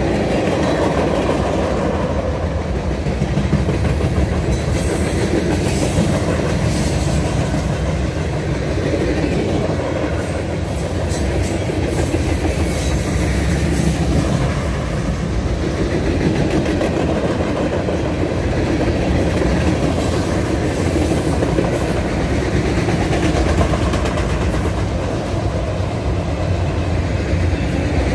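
Mixed freight train of flatcars, tank cars and autoracks rolling steadily past on the rails, steel wheels running over the track with a loud, even rumble.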